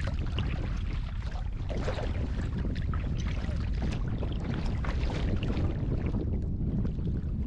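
Kayak being paddled on open water: irregular splashes and water sounds over a steady wind rumble on the microphone.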